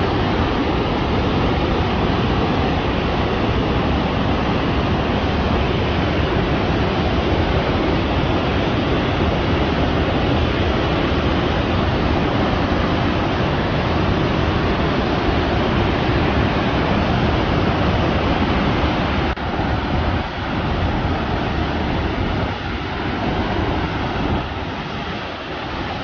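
Augrabies Falls on the Orange River in flood: a steady roar of floodwater pouring over the rocks. It drops a little and turns less even from about two-thirds of the way through.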